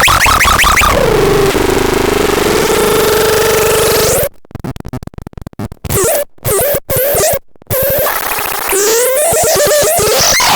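Harsh, noisy electronic synthesizer sounds. A fast sweeping tone settles into a held buzzing tone, then chops into stuttering cut-outs and silences for a few seconds before warbling, gliding tones return.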